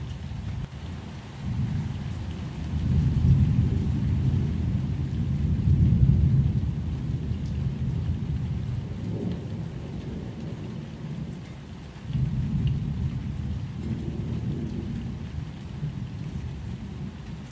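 Thunderstorm ambience: low rolling rumbles of thunder swelling and fading, strongest a couple of seconds in and again about twelve seconds in, over a light steady hiss of rain.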